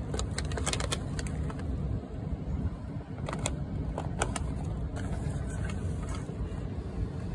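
Plastic bag of green coffee beans being handled, giving short crinkles and light clicks in scattered bursts, over a steady low rumble.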